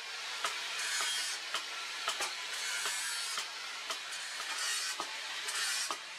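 Light hammer knocks on a red-hot steel blade on a post anvil, about two a second and uneven, over a steady hiss.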